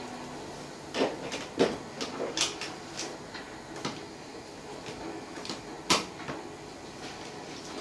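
Someone handling things at a kitchen cupboard: a string of sharp clicks and knocks, with the loudest knock about six seconds in.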